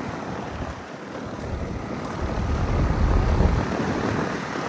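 Heil QuietComfort 3-ton central air conditioner condenser running, its fan pushing a steady rush of air through a dirt-clogged coil, with wind buffeting the microphone in an uneven low rumble that grows louder about halfway through.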